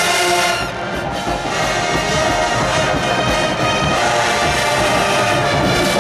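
Marching band playing loudly, its brass section carrying a full, sustained tune.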